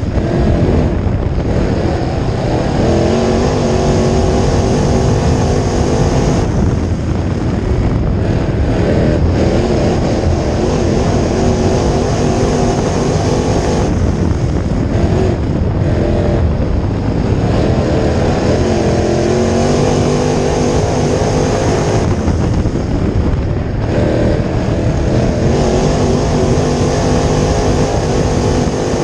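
A crate late model's V8 engine under race power, heard from inside the cockpit: the revs climb down each straight and fall away as the driver lifts for the turns, about every seven to eight seconds, once per lap of a dirt oval.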